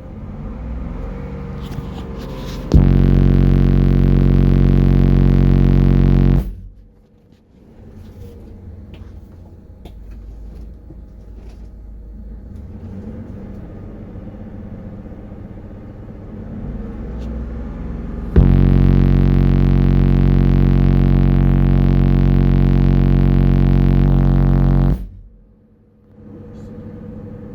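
Rockville Punisher subwoofer playing two loud, steady bass-tone bursts ("burps") driven at about 5,000 W RMS. The first starts about three seconds in and lasts about three and a half seconds; the second starts near the middle and runs about six and a half seconds. Each cuts off sharply. A low, steady rumble is heard between them.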